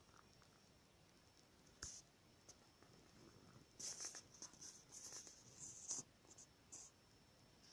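Faint handling noises: a brief scrape about two seconds in, then about three seconds of rustling and scraping, over a faint steady high whine.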